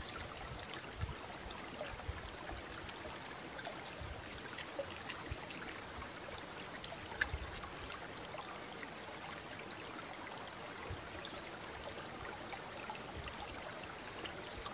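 Small forest brook babbling over stones, a steady rushing, with a few faint clicks; the sharpest comes about seven seconds in.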